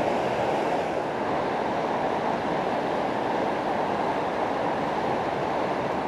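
Fast mountain river rushing over boulders in white-water rapids: a steady, full rush of water with no breaks.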